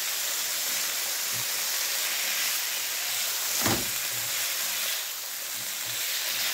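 Marinated chicken strips sizzling in a hot nonstick frying pan on high heat, stirred with a silicone spatula, as the chicken gives off its water. There is a steady hiss throughout and a single knock a little past the middle.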